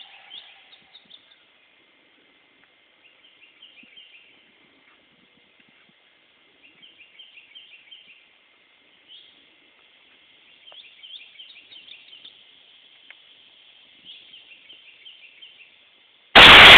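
Faint bird chirps, then about sixteen seconds in a single loud rifle shot from a 7.62×51 (.308) rifle, close and clipping, with a trailing decay. The round misses just to the side of the Tannerite target, so there is no explosion.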